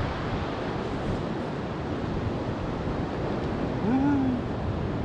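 Ocean surf washing against a rocky shore with wind buffeting the microphone, a steady rushing noise. A brief wordless voice sound about four seconds in.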